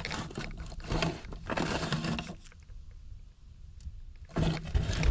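Rustling and scraping of the hidden cache, an old ammo case, being handled and pulled out, then a short lull and a few knocks near the end.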